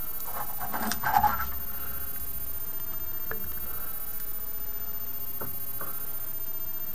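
Handling noises on a hobby desk: a short clatter of knocks about a second in as the plastic tank model on its display base is set down on the cutting mat, then a few faint ticks of small tools such as tweezers being handled, over a steady faint hiss.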